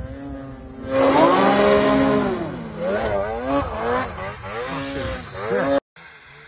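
Snowmobile engine revving hard, its pitch climbing and dropping again and again as the throttle is worked. Near the end it cuts off abruptly, and a fainter engine follows.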